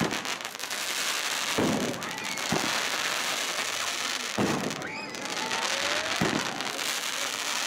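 Aerial fireworks: about five sharp shell bursts a second or two apart over a continuous dense crackle of glittering stars.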